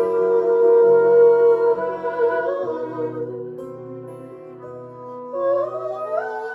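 Instrumental interlude of a live song: held notes that thin out and grow quieter around the middle, then a stepwise rising run of notes near the end.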